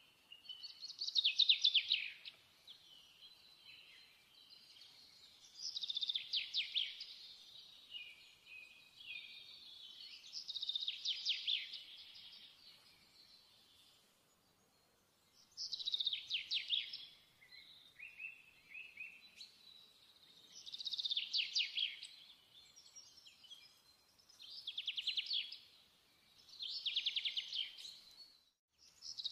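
A songbird singing: repeated phrases of fast, high trills, each a second or two long, coming every few seconds and more often near the end.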